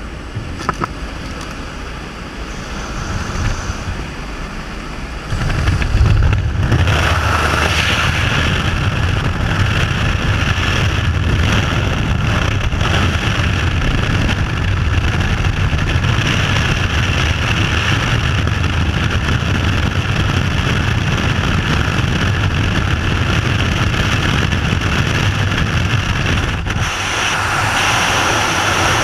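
Jump plane's propeller engine drone mixed with wind noise on the microphone. About five seconds in it turns much louder as the camera moves out into the slipstream at the open door. Near the end it briefly dips and becomes rushing freefall wind as they leave the plane.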